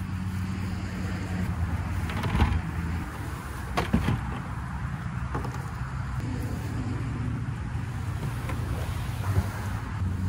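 Steady low drone of motor traffic from a nearby road, with a few sharp knocks over it, the loudest about four seconds in.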